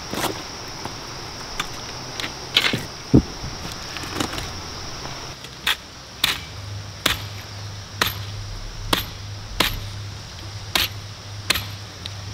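A cleaver chopping through a slab of ribs laid on a banana leaf: about nine sharp chops, roughly one a second, in the second half. Before that, scattered knocks and clicks of footsteps on river stones, one stone clack louder than the rest.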